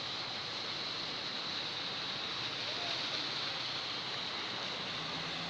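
Steady rushing, splashing water as cars and a motorcycle drive through floodwater on a flooded street. A faint low engine hum comes in near the end.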